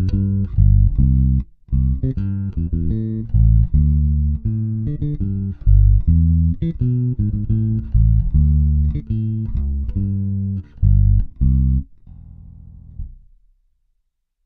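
Bacchus Woodline five-string electric bass playing a repeated exercise phrase of quick single plucked notes. About twelve seconds in the phrase stops, and a last quieter note rings and fades out.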